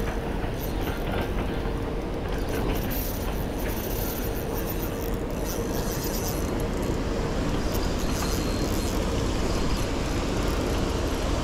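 Pond paddlewheel aerators running: a steady mechanical drone with a faint hum, over water being churned and splashed.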